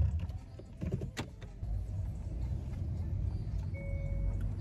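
Car cabin noise as the car drives: a steady low road and engine rumble that fills out about a second and a half in. A few sharp clicks come in the first second or so.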